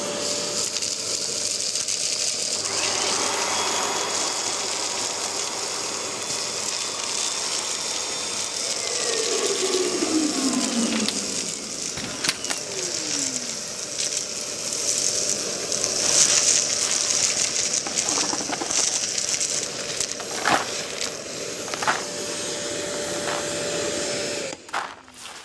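Kärcher WD 3.200 wet-and-dry vacuum cleaner running at a steady pitch while sucking up dust, shingle, stones and rubble, with scattered clicks and rattles as debris goes up the hose. It is switched off about a second before the end and winds down.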